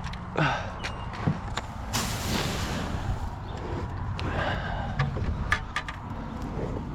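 Cattle at close range blowing and snorting through their noses, with a short low call and a few sharp knocks, over a steady low rumble.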